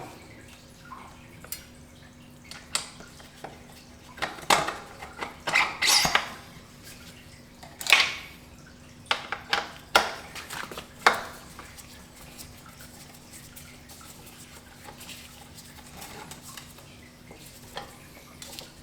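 Metal bike parts and tools clinking and knocking together in a run of sharp clicks and clatters during drivetrain work, busiest in the middle and then dying down to faint handling noises.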